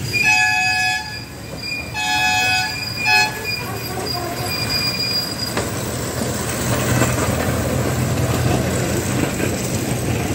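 Toy train's horn sounding three times (a blast of about a second, a shorter one, then a quick toot), followed by the train running past with a steady low drone from its locomotive and the noise of its wheels on the track.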